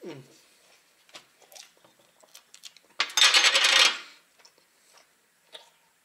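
Small mouth clicks from chewing, then about three seconds in a loud scraping rattle lasting about a second as a glass jar is slid across a metal tray and picked up.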